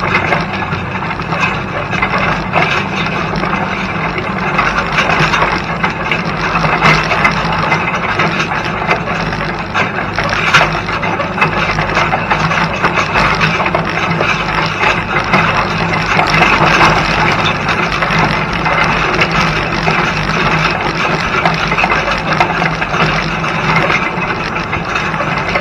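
Field cultivator working through soil, its frame, chains and harrow rattling and scraping steadily over rough ground, with a tractor engine droning underneath.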